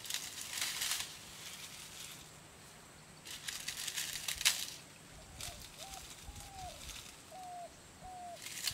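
Leaves and twigs rustling and crackling as a bush is pushed into and handled, in two bursts. From about halfway, an animal gives a series of about six short, low calls, roughly two a second.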